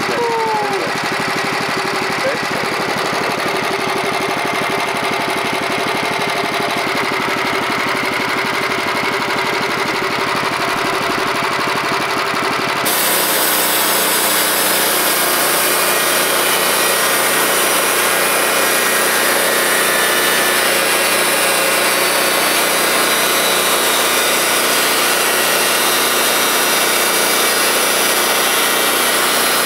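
Norwood portable bandsaw mill's gas engine running steadily; a little before halfway the sound switches abruptly to a louder, hissier run as the band blade saws through a cedar log.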